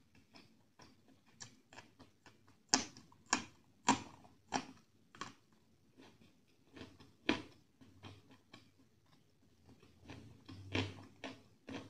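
Close-miked chewing of rice, chicken curry and green chillies eaten by hand: a string of short wet smacks and clicks at irregular intervals. The loudest are about three to five seconds in.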